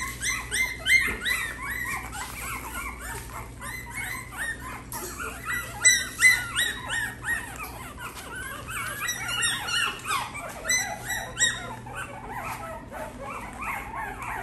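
A litter of young Cavalier King Charles Spaniel and Cavapoochon puppies crying, many short high-pitched squeals overlapping without pause, the crying of hungry puppies wanting their mothers.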